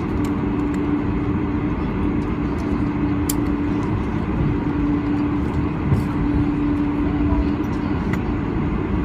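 Steady cabin noise of a Boeing 747-400 airliner: an even low rumble with a constant hum, heard from inside the passenger cabin, with a few faint clicks.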